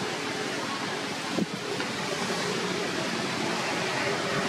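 Steady outdoor background noise, an even rushing hiss, with one brief click a little over a second in.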